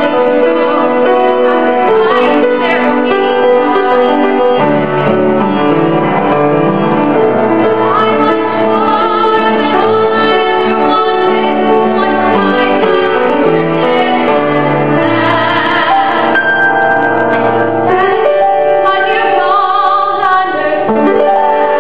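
A young woman singing solo over piano accompaniment.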